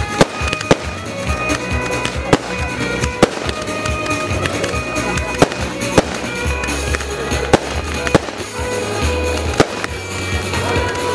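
Fireworks going off with sharp bangs and crackle every second or so, over music with sustained tones.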